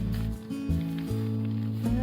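Background music with a steady bass line and a melody that changes notes every half second or so.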